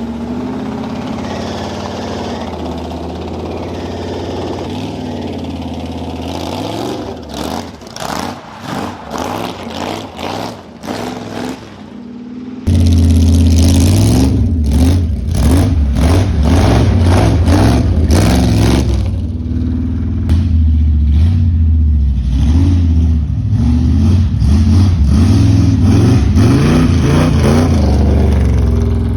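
Big-block 454 V8 running, then giving a series of short surges about once a second. About 13 seconds in it suddenly gets much louder and keeps running hard, its pitch rising and falling as the revs change.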